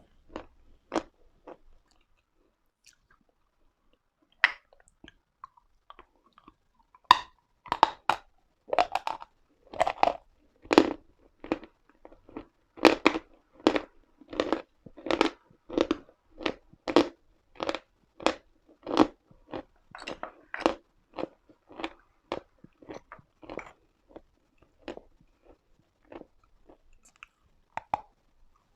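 Pieces of Uslada edible chalk crunched and chewed close to the microphone: a few crisp bites, a short lull, then steady chewing at about two crunches a second that thins out near the end.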